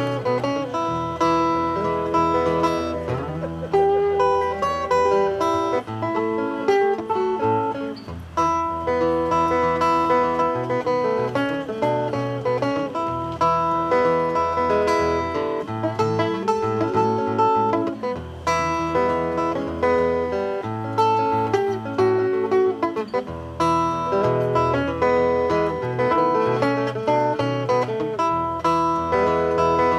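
Live acoustic guitar music: an instrumental folk tune with a picked melody over a moving bass line.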